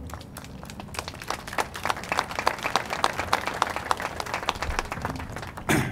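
Audience applauding: scattered clapping that fills in after about a second and thins out toward the end, with one louder thump just before it ends.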